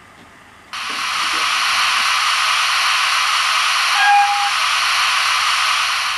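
Steam hiss from a model steam locomotive's DCC sound decoder, played through the model's small speaker. It starts suddenly about a second in, holds steady and begins to fade near the end, with a brief faint tone sounding over it partway through.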